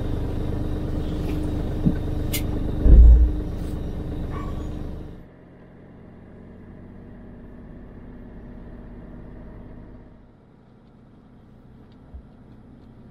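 Car interior noise while driving: steady engine and road rumble, with a heavy low thump about three seconds in. About five seconds in the noise drops suddenly to a quieter, steady hum.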